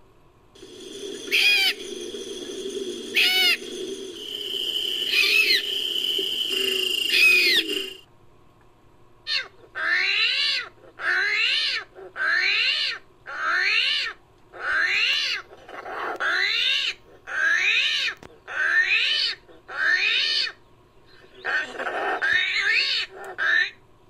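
Made-up nine-banded armadillo creature sound effects. First comes a long, steady low sound with a few shrill, pitch-bending squeals over it for about eight seconds. After a short pause come about a dozen short calls, each rising then falling in pitch, at roughly one a second, with a longer call near the end.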